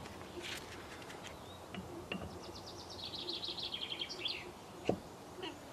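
A small bird singing a fast trill of rapidly repeated high notes for about two seconds in the middle, over quiet outdoor background, with a few light clicks and one sharper knock near the end.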